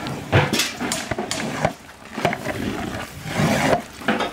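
A long metal spatula and ladle scrape and knock against the side of a large aluminium pot in irregular strokes while stirring a heavy batch of rice and chicken biryani.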